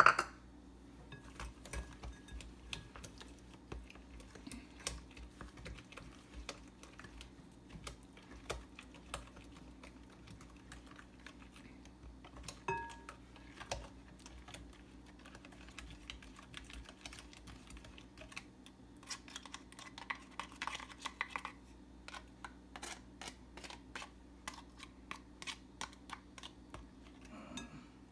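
A utensil clicking, tapping and scraping against a mixing bowl in quick irregular strokes while sugar is mixed into mashed banana and butter, with a denser stretch of scraping about two-thirds of the way through.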